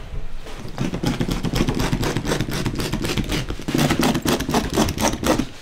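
Old carpet being torn up off the floor by hand: a dense run of rapid crackling rips and snaps that stops shortly before the end.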